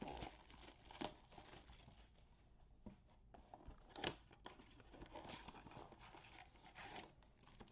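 Faint tearing and crinkling of trading-card packaging, a blaster box and its foil packs, being torn open and handled, with a few sharper crackles about one and four seconds in.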